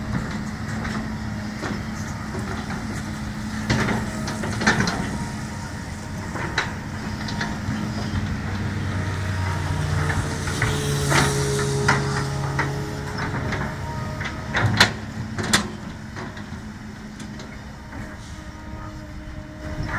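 Kobelco SK200 hydraulic excavator's diesel engine running steadily, with a deeper engine tone added for a few seconds midway. Several sharp knocks come over it, two close together near the middle and two more a couple of seconds later.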